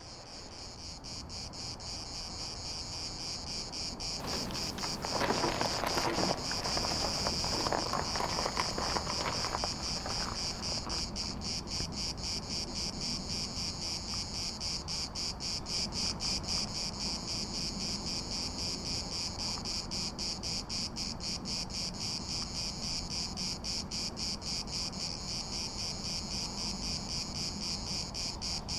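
Insects chirring in a steady, rapidly pulsing high-pitched chorus, with a brief rush of broader noise about five seconds in.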